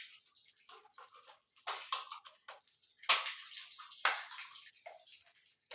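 Scattered clicks, knocks and short scrapes of a rotary hammer and its plug being handled, with no motor running: the new Total 1500 W rotary hammer does not start.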